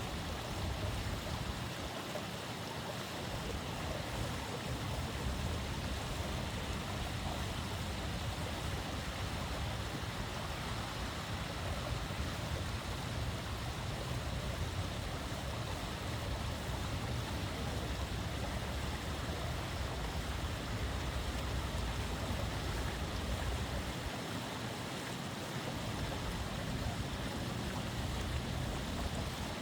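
Water pouring steadily over a small waterfall, an even rush of noise.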